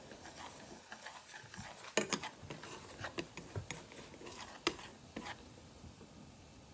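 Wooden chopsticks stirring a fish-sauce and sugar glaze in a metal saucepan, clicking and scraping against the pan at irregular intervals, with sharper knocks about two seconds in and again near five seconds.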